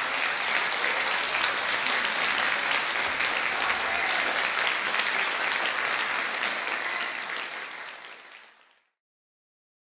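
Audience applauding: dense, steady clapping that fades and then cuts off abruptly near the end.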